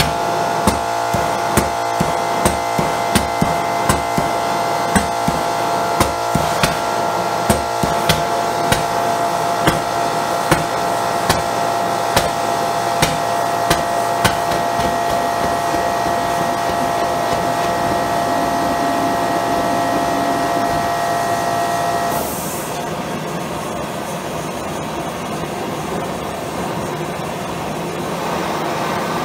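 Homemade micro jet propane burner running on a high-velocity air jet, a steady rush of air and flame with a whistling tone, while a hand propane torch flame is held to it. For the first fifteen seconds or so, sharp pops come a little more than once a second as the propane fires intermittently inside the burner. After about twenty seconds the whistle cuts off and a steady rushing roar remains.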